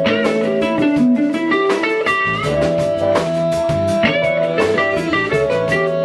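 A live band plays, led by a Telecaster-style electric guitar with held, bending notes over bass and drums.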